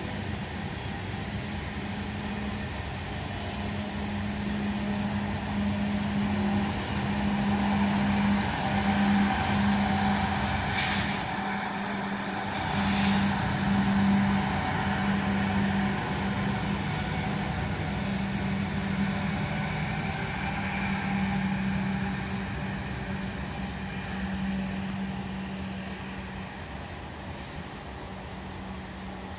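Freight train rolling past, a steady rumble of wheels on rail with a constant hum beneath it, growing louder towards the middle and fading near the end, with two short sharp noises in the middle.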